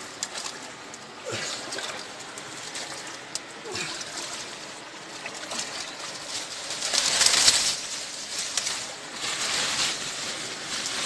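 Stream water splashing and sloshing as hands rub and swish bundles of fresh leaves in a shallow stream, with a louder splashing burst about seven seconds in.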